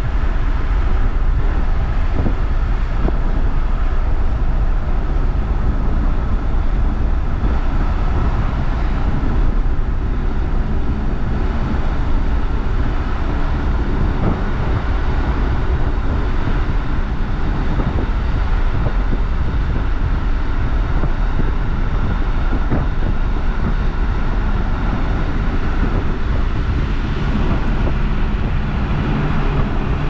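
Steady road and engine noise heard from inside a moving car's cabin: a constant low rumble with a hiss of tyres and wind over it.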